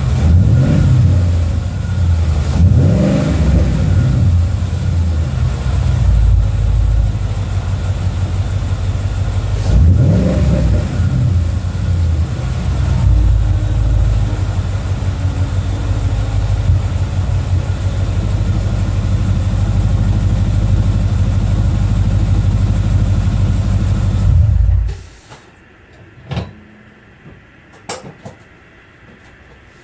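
2012 Ford Mustang GT's 5.0 V8 through a Flowmaster American Thunder axle-back exhaust on a cold start: three quick revs that rise and fall within the first dozen seconds, then steady idling. The engine cuts off suddenly about 25 seconds in, and a few light clicks follow.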